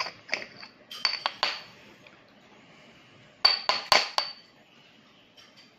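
Metal clinks from handling a hand coffee grinder and portafilter: a few sharp clinks in the first second and a half, then a cluster of louder, ringing clinks about three and a half seconds in.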